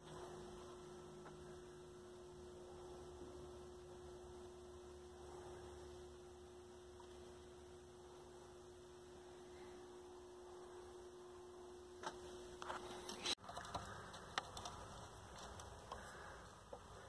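Faint steady electrical hum with one low tone, which stops abruptly about three-quarters of the way through; a few light clicks and handling noises follow near the end.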